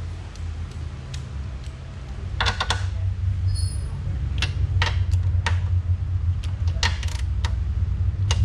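Scattered metallic clicks and taps of a ratchet wrench on a coilover strut's top-mount nut as it is tightened, a small cluster a few seconds in and then single clicks. A steady low hum runs underneath.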